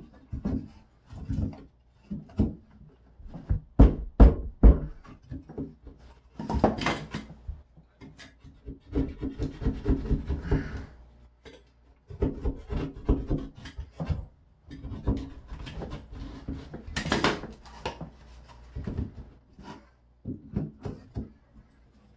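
Hand work on a drywall patch: repeated scraping and rubbing strokes mixed with scattered knocks and taps.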